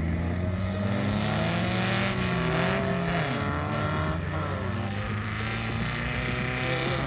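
Several Volkswagen-engined off-road racing buggies running hard on a dirt track, their engines revving up and down in pitch and overlapping as they accelerate and ease off.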